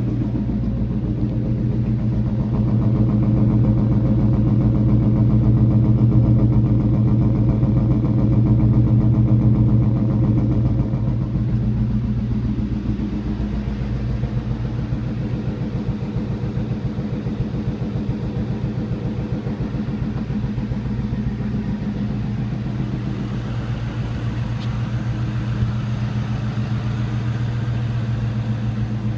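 2003 Ford Mustang GT's 4.6-litre V8 idling with a weird, pulsing sound, a little louder for the first ten seconds or so before settling. The owner hears it as abnormal but has no idea of the cause, and no check-engine light is on.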